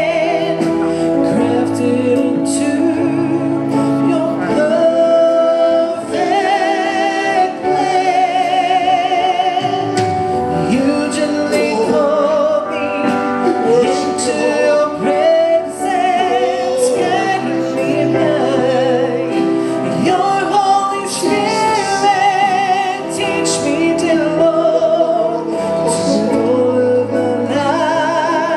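Gospel-style congregational worship song: voices singing a slow melody with vibrato over sustained keyboard-like chords and bass.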